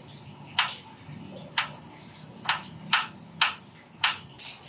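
Kitchen knife chopping garlic on a wooden cutting board: six sharp knocks at uneven spacing, a couple of them close together near the middle.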